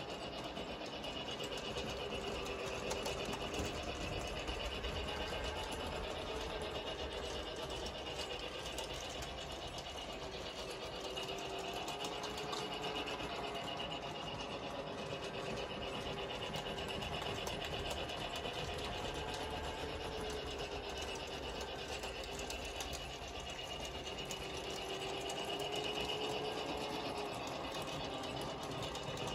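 Battery-powered toy train running around its plastic track: a steady whir of the small electric motor and gears, its pitch wavering slowly up and down.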